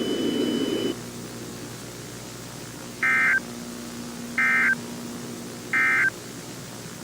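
EAS SAME digital data bursts: three short, identical warbling two-tone bursts about 1.4 s apart, the end-of-message code that closes an emergency alert. Before them, a steady high tone over a noisy low hiss cuts off about a second in, leaving a faint low hum.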